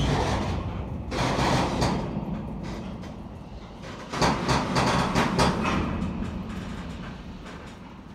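Freight cars rolling slowly past on the rails, a steady low rumble broken by bursts of clanking from wheels and couplers at the start, about a second in, and again around four to five seconds in.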